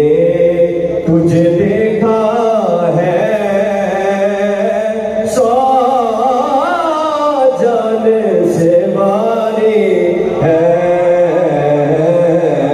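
A man chanting a naat, an Urdu devotional song, in long melodic lines that rise and fall, over a steady low hum.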